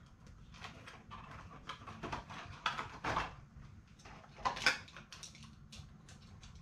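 Saw chains and their cardboard boxes being handled: scattered short clicks, rustles and light clatter, with a louder clatter about four and a half seconds in.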